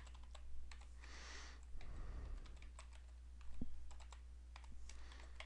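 Computer keyboard typing: faint, irregularly spaced keystrokes.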